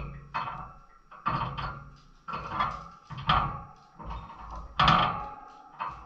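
A string of short, sudden animal calls, about one a second, each fading quickly.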